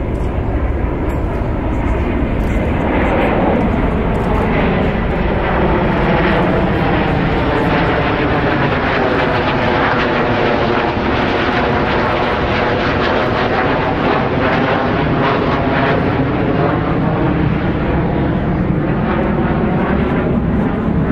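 Pair of F/A-18 Super Hornet fighter jets flying past in formation, their twin turbofan engines making a loud, steady jet roar. The roar builds a few seconds in, and its tone has a sweeping, phasing whoosh that falls and then rises again as they pass.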